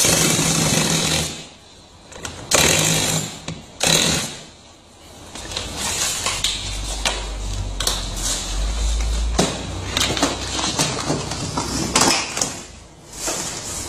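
Electric screwdriver driving screws into the plastic body of a toy ride-on truck, running in three short bursts in the first few seconds. Then clicks, knocks and handling clatter on the plastic body.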